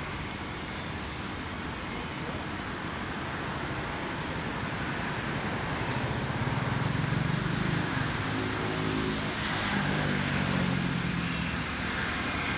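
Outdoor road-traffic noise: a steady rushing background, with a low engine-like hum that grows louder about halfway through and holds.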